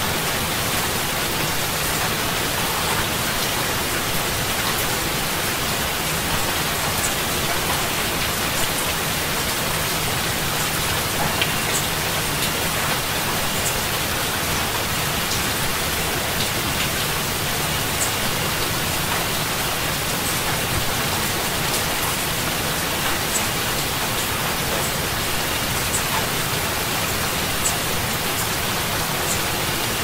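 Heavy rain falling steadily: a dense, even hiss with scattered drop ticks.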